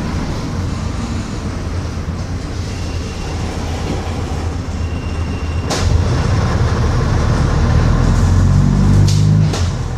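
Bristol RELL6L bus heard from on board: the rear-mounted diesel engine runs with body rattle. It is quieter at first, then after a sharp clunk a little past halfway the engine pulls louder. Two more short clicks come near the end.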